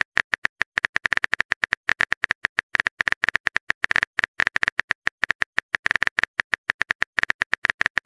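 Smartphone keyboard typing clicks, one short sharp click per letter, in a fast, slightly uneven run of several a second as a text message is typed out.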